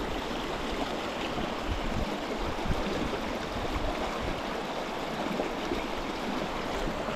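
Small mountain creek running over rocks and small cascades: a steady rush of water.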